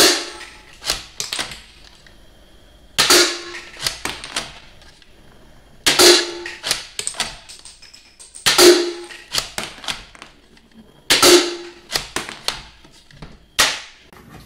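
Toy Barrett sniper rifle firing six times, one shot every two and a half to three seconds. Each shot is a sharp crack followed by a brief ringing rattle and a few light clicks, as the ejected plastic shell casings drop onto the tile floor.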